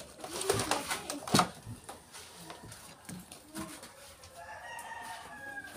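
A rooster crows once, one long call near the end. Earlier, a few sharp crunches and smacks of close-up eating, the loudest about a second and a half in.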